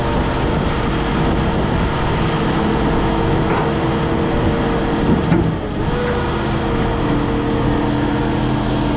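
Hydraulic scrap baler running under load as it compacts a bale, a steady machine drone with a held whine. There is a short knock about five seconds in, and the whine steps down in pitch about seven seconds in.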